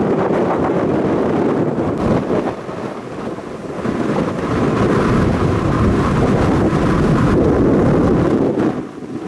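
Strong thunderstorm outflow wind buffeting the microphone, coming in gusts. It eases about two and a half seconds in and builds again from about four seconds, strongest near the end.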